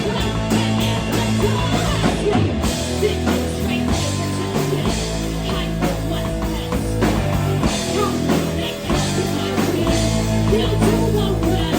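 A rock band playing a loud, steady groove: drum kit, electric guitar and bass, with bass notes changing every second or so.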